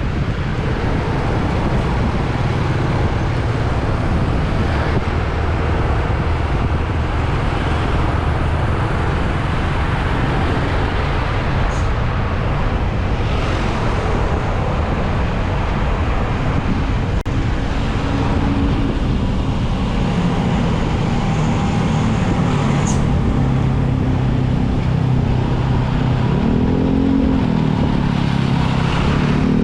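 Wind rushing over the microphone of a moving motorbike, with the motorbike's engine note coming through in the second half and rising and falling near the end.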